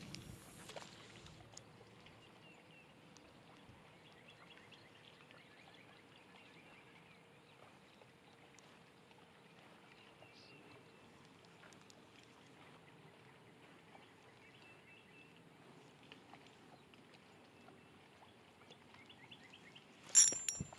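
Faint lakeshore ambience: wind and small waves lapping at the bank, with a few faint high chirps. A cluster of sharp clicks near the end.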